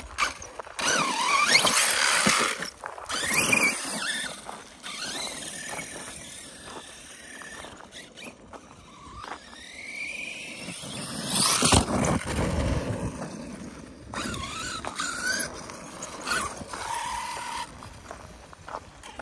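Arrma Kraton 6S RC truck's brushless motor and drivetrain whining at full throttle, the pitch climbing and dropping in several bursts as the throttle is pulsed, over tyre noise on gravel and dirt.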